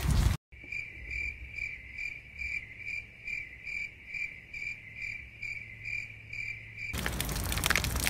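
Cricket chirping sound effect cut in over the picture: a steady, high chirp repeating about twice a second over a faint low hum, starting and stopping abruptly.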